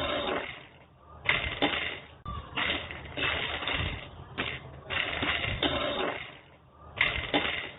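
Dry makhana (puffed lotus seeds) rattling and scraping against a pan as they are stirred, in repeated strokes about once a second.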